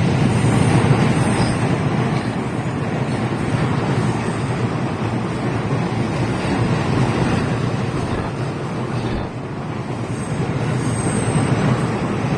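JR Narita Line rapid train passing close by: a loud, steady rumble of wheels on rails, with a short dip about nine seconds in.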